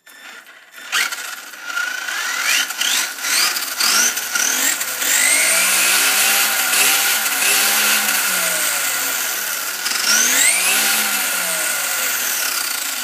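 Axial Exo Terra buggy's Tekin Pro4 4000kV brushless motor and drivetrain whining under throttle, the wheels spinning free with no load, on a 3S (11.1 V) LiPo. The pitch sweeps up sharply at each throttle burst, about two and a half, four and ten and a half seconds in, and holds high in between.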